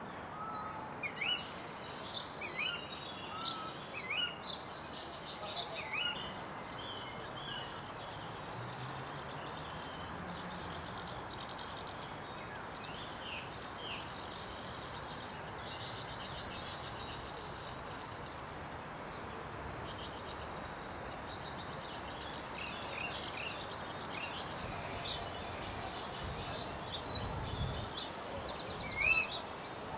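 Bird chirps over a steady background hiss: single chirps about every second or two at first, then from about twelve seconds in a fast run of repeated high chirps lasting about twelve seconds, which thins out to scattered calls near the end.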